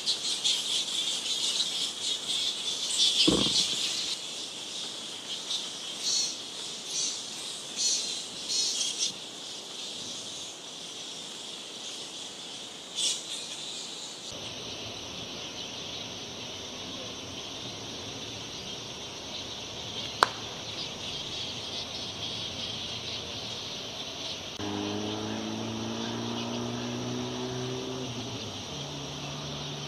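Straw-coloured fruit bat (Eidolon helvum) colony calling from its roost trees: a dense, high-pitched squeaking chatter with loud irregular bursts, the colony growing agitated late in the day. About fourteen seconds in it changes abruptly to a steadier high chorus, and near the end a low steady hum comes in.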